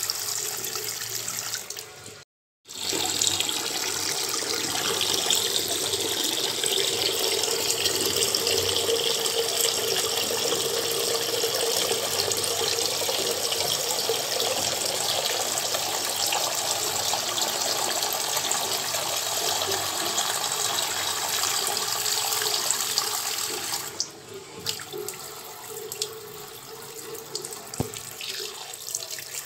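Steady rushing noise like water running from a tap, broken by a brief gap of silence about two seconds in and falling noticeably quieter for the last few seconds.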